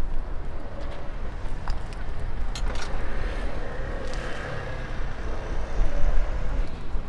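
Outdoor street ambience: a steady low rumble of traffic or wind, with scattered small clicks and faint voices in the background.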